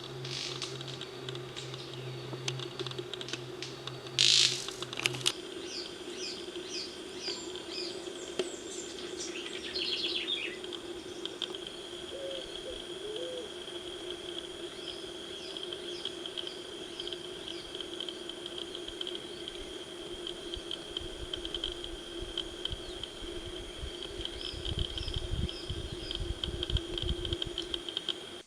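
Bird calls in a natural setting: quick runs of short high chirps, twice, over a steady high-pitched buzz and a low steady hum. A single loud knock comes about four seconds in, and a low rumbling comes near the end.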